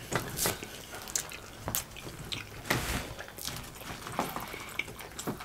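Close-miked wet eating sounds from fried chicken legs: chewing and lip smacks, with greasy fingers pulling the meat apart. They come as an irregular string of short wet clicks and smacks, several a second.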